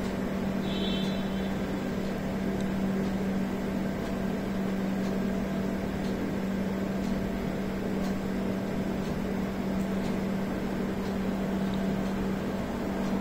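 Steady low hum with an even background hiss, like a running appliance or fan.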